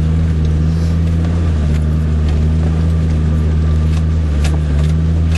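Off-road 4x4's engine running at steady revs, heard from inside the cabin while it drives slowly along a rutted track. A few short knocks come through, about two seconds in and again near the end.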